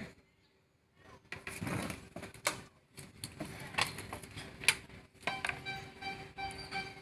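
Camera-handling noise: rustling and sharp knocks as the camera is moved against clothing. About five seconds in, a pitched tone with overtones starts, coming and going in short pulses over a faint steady hum.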